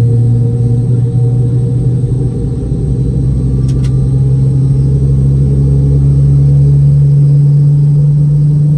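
Boeing 717's tail-mounted Rolls-Royce BR715 jet engine heard from inside the rear cabin during engine start: a loud steady low hum that rises slowly in pitch as the engine spools up, with a low rumble under it that drops away near the end. A faint click about four seconds in.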